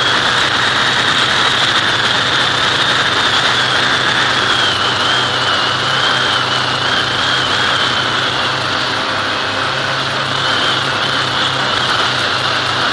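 Electric motor and propeller of an FPV aircraft heard through its onboard camera in flight: a steady high whine that wavers slightly in pitch, over rushing air noise.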